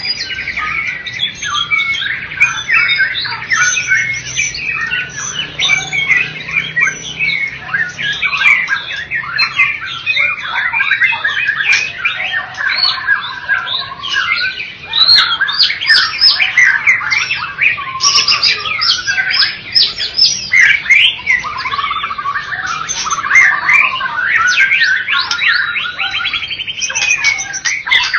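White-rumped shama singing a continuous, rapid, varied song of fast whistled sweeps and trills with barely a pause.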